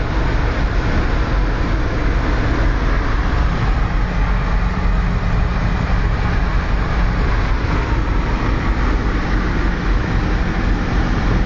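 Hot rod's engine and tyres at steady cruising speed on a motorway, heard from inside the cab: an even drone with road and wind noise and no change in engine speed.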